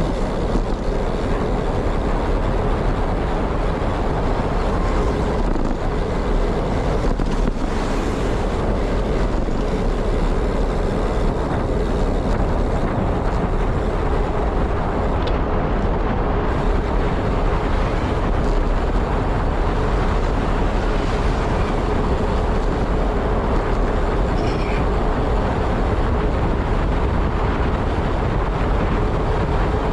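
Wind buffeting the microphone and road noise from a moving ride, a loud, steady rush strongest in the deep low end, with a faint steady hum.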